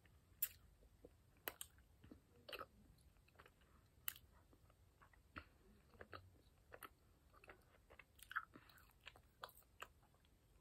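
Faint chewing with the mouth closed: scattered soft wet clicks and smacks, irregular, about one or two a second.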